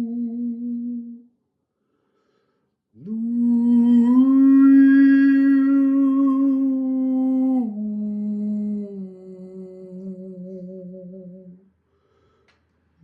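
A man's voice humming a slow, wordless sound-healing melody in long held notes. After a pause, one note swoops up and holds, then steps down and wavers as it fades.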